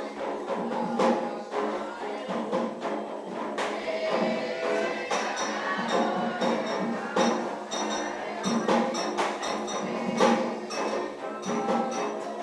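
Live ceremonial percussion music for an Afro-Brazilian religious rite: drums and a metal bell struck in a fast, continuous rhythm.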